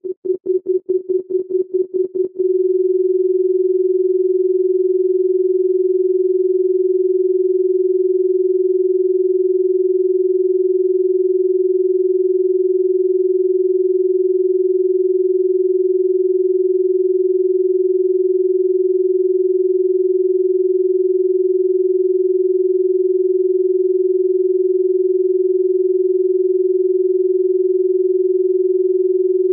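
Electronically generated steady pure tone, fairly low in pitch. It pulses on and off about four times a second for the first two and a half seconds, then holds unbroken.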